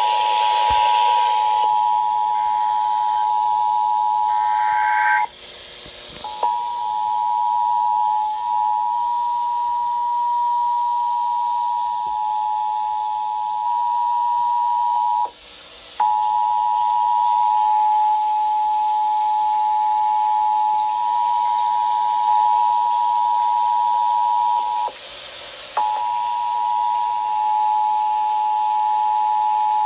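Emergency Alert System attention signal, the steady two-note tone of 853 and 960 Hz sounded together. It is broken three times by gaps of about a second, near 5, 15 and 25 seconds in.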